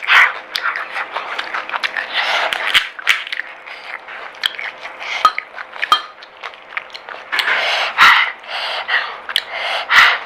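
Close-up eating sounds of pani puri: the crisp shells crunching and cracking with wet slurping of the spiced water, in an irregular run of sharp clicks and noisy mouthfuls, with heavy breathing from the extra chilli heat.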